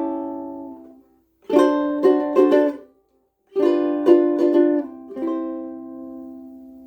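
Kiwaya Luna LC-2 concert ukulele strummed: short groups of chords broken by two brief full stops, then a final chord left to ring out and fade.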